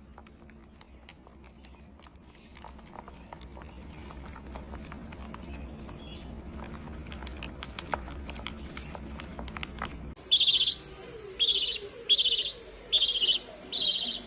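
Faint scattered ticks and rustling over a low hum, then about ten seconds in a baby parrot gives five loud, short, harsh screeches roughly a second apart.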